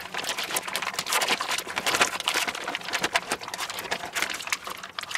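Clear plastic bag crinkling and rustling in quick, irregular crackles as it is handled, with marinated pork steaks inside.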